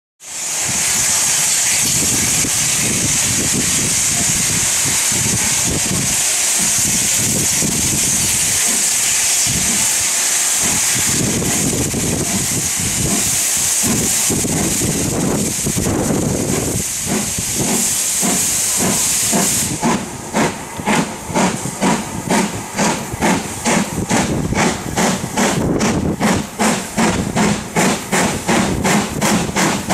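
LMS Black Five 4-6-0 steam locomotive No. 45379 with a loud steady hiss of escaping steam. About 20 seconds in, the hiss drops away and the locomotive's exhaust beats start, about two chuffs a second, as it gets under way.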